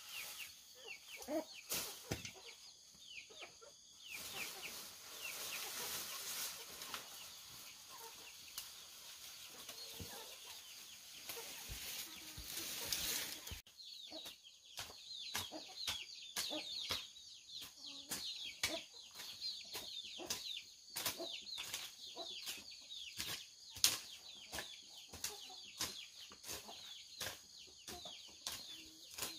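Chickens clucking, with many short, high, falling peeps and frequent clicks and rustling. A steady hiss under the first half stops abruptly about halfway through.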